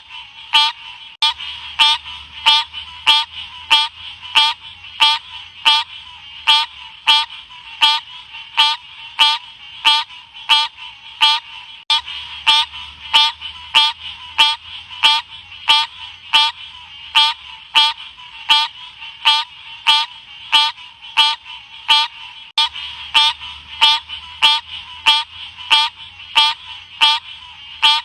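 An Odorrana livida frog calling over and over: short, high, chirping calls repeated evenly about one and a half times a second.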